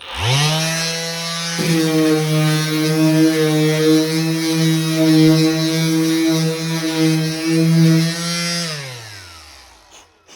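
Cordless brushless random orbital sander switched on, spinning up to speed in well under a second, running steadily with a small jump in pitch about a second and a half in, then switched off and winding down near the end.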